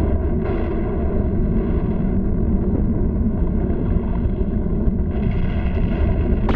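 Animated-cartoon sound effect of a volcano erupting: a loud, deep, continuous rumble with no letup.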